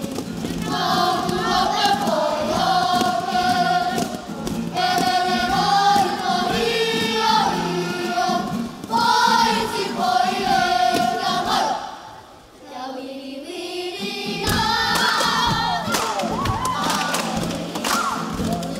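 A children's kapa haka group singing a waiata-poi together, with guitar accompaniment and the light thuds of poi striking. The singing falls away for a moment about twelve seconds in, then resumes.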